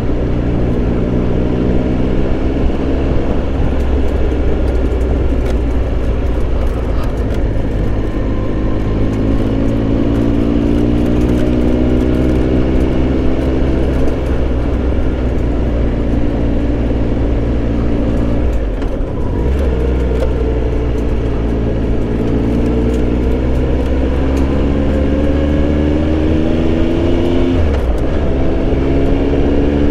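Triumph Tiger Explorer 1200's three-cylinder engine running on the road. Its note sinks slowly, breaks briefly about two-thirds of the way in, then climbs again as the bike accelerates, with another short drop near the end.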